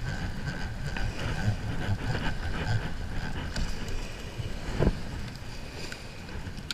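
Wind buffeting the microphone in a steady low rumble, with the whir of a conventional fishing reel being cranked over the first few seconds and a single knock about five seconds in.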